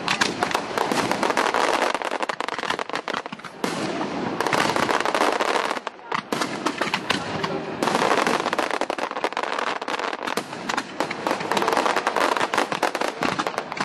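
Fireworks display: a dense, rapid crackling and popping of bursting shells, with brief lulls about four and six seconds in.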